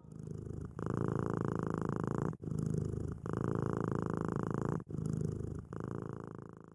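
A cat purring close up: a steady low purr broken by short pauses every second or so.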